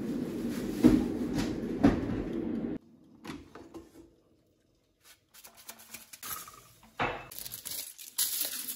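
Kitchen handling sounds: a steady whir with a couple of sharp clicks, which cuts off suddenly about three seconds in. After that come scattered light knocks and rustles as foil, the air fryer basket and a plate are handled.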